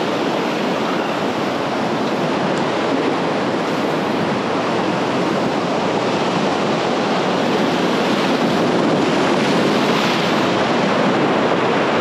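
Ocean surf breaking on a rocky shore, a steady rush of waves that grows louder in the last few seconds as a large wave washes up over the rocks.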